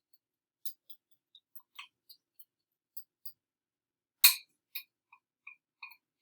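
Light, scattered clicks and taps of a utensil and mixing bowl against a metal muffin pan while batter is divided into the cups, with one much louder sharp clack about four seconds in.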